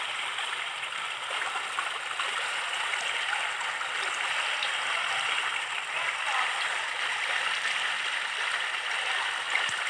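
Running water making a steady, even rushing sound, like a stream or a spring's outflow.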